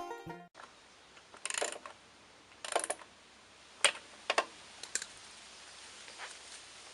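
Banjo music cuts off at the start, then a handful of short, light clicks and scrapes, as of small parts being handled, spaced about a second apart over a faint hiss.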